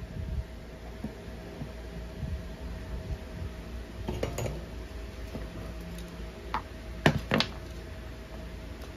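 Small knocks and clicks of a circuit board and tools being handled on a wooden workbench, with two sharp clicks close together about seven seconds in, over a faint steady hum.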